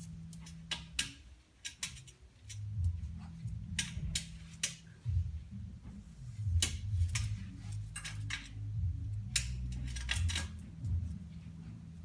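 A Pomeranian's claws clicking and scraping on a TV stand as it paws into the gap underneath: irregular sharp clicks, some in quick clusters, over a low hum.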